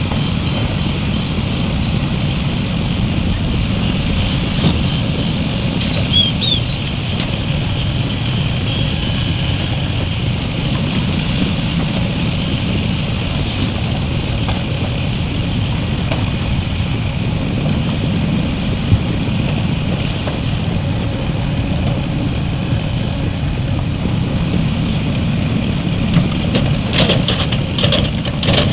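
Heavy diesel earthmoving machinery running steadily, a continuous low engine rumble, with a quick series of knocks and clanks near the end.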